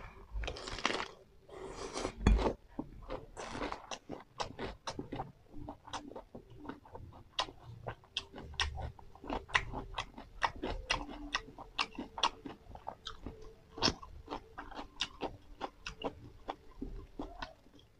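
Close-up chewing of a fresh lettuce-leaf wrap filled with rice noodles, sangvak and cucumber. Three crunchy bites come in the first few seconds, then steady wet chewing with many small clicks.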